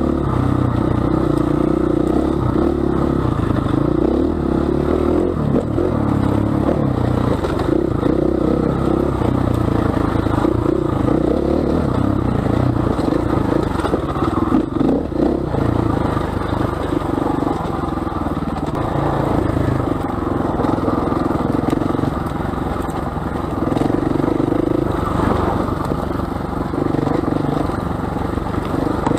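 A KTM 500 EXC's four-stroke single-cylinder engine running on the bike being ridden, with the throttle opening and easing off again and again as it works along a tight trail.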